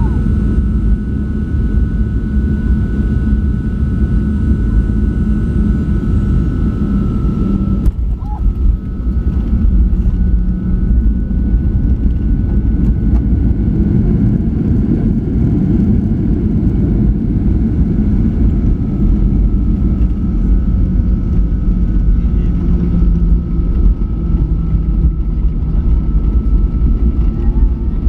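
Jet airliner engines and airflow heard from inside the passenger cabin: a steady loud rumble with a high engine whine, a brief click about eight seconds in.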